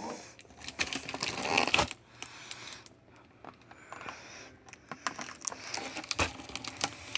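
Fireworks packaging and cardboard boxes being handled and put back into a box: a run of light clicks, knocks and rustling.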